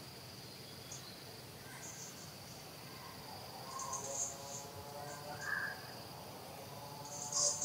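Insects chirring in a steady high drone, with short louder high chirps about four seconds in and again at the end. A faint pitched sound rises underneath in the middle.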